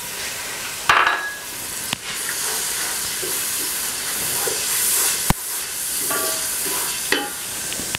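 Yogurt and spice masala sizzling in hot oil in a metal cooking pot while a wooden spatula stirs and scrapes through it. The masala is being fried (bhuna) before the chicken goes in. There is one sharp knock about five seconds in.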